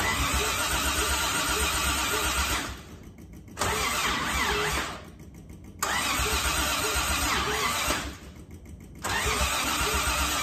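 Mid-1960s Toyota Crown engine being cranked by its starter motor in four bursts with short pauses between, each an even, chugging rhythm that never picks up: the engine turns over but won't fire. The owners suspect the ignition timing.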